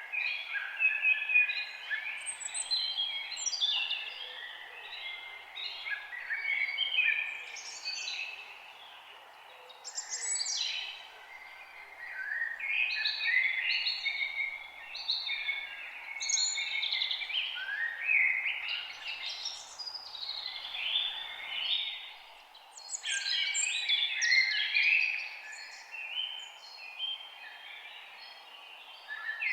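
Forest songbirds singing: bouts of varied warbling song a few seconds long with short pauses between them, over a steady faint hiss of background noise.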